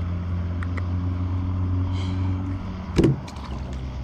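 A steady low motor hum that drops in level about two and a half seconds in, with a single sharp knock about three seconds in.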